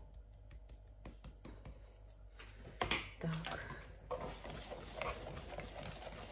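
Flour being sifted into a bowl: a steady run of light, even clicks, then a louder knock about three seconds in, followed by a steady rustle.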